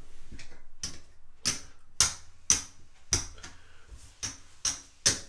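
Casino chips clicking against one another as they are picked up off the craps layout, about two sharp clicks a second. The losing bets are being taken down after a seven-out.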